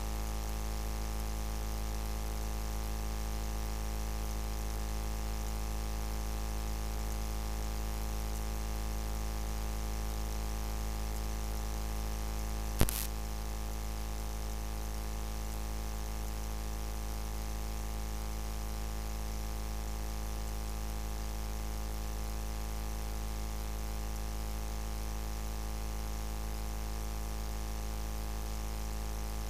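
Steady electrical hum and hiss from the sound system, with one sharp click about 13 seconds in.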